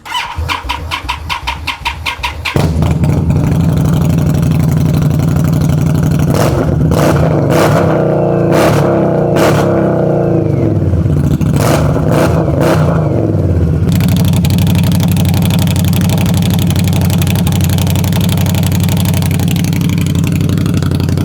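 2021 Indian Scout V-twin cranking on the starter for about two seconds, then catching and running loud through a GP Exhaust with the DB killers removed (open pipes). Between about six and thirteen seconds it is revved several times, each rev falling back, and then it settles to a steady idle.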